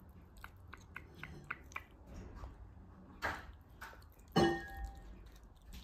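A Ragdoll kitten crunching dry kibble from a stainless-steel bowl: small, irregular clicks of chewing, with a louder clink that rings briefly about four and a half seconds in.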